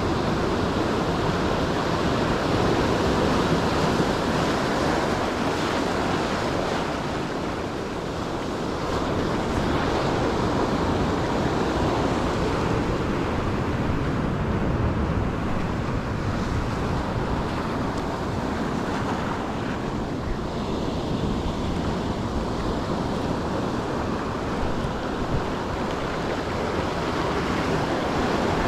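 Ocean surf washing onto the shore, a steady rush that swells and eases slowly, with wind buffeting the microphone.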